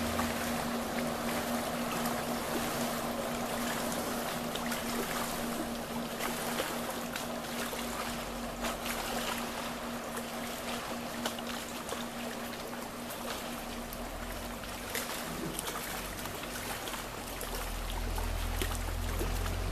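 Distant personal watercraft towing a water skier: its engine is a steady drone that fades away about two-thirds of the way through, over a haze of lapping water with small scattered clicks. A low rumble builds near the end.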